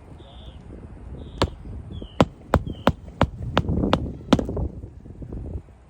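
A run of about eight sharp knocks, roughly three a second, on an asphalt shingle roof during a shingle repair.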